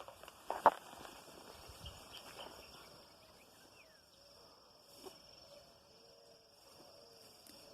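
Steady high-pitched insect drone, with two sharp snaps in the first second and faint short bird calls in the second half.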